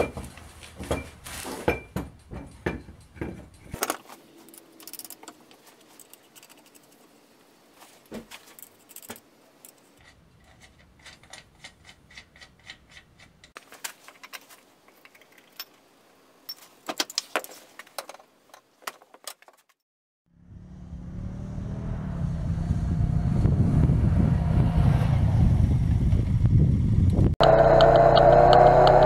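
Clicks and metallic knocks of a wheel being fitted and a bottle jack being worked. About two-thirds of the way in, a Honda Foreman ATV engine comes in and grows steadily louder, with a whine joining it near the end.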